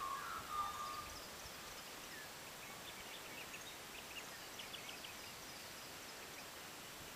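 Faint open-air ambience with scattered, distant small-bird chirps. A brief animal call trails off in the first second.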